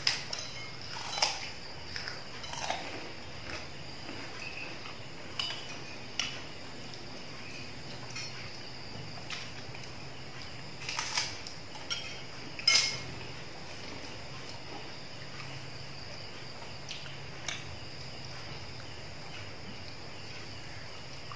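Spoons clinking against plates now and then during a meal, with the sharpest clink about thirteen seconds in, over a steady high chirring of crickets.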